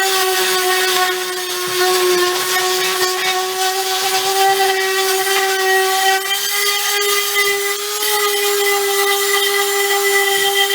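Electric sander running steadily against wooden boards, a constant motor whine over the hiss of abrasive on wood.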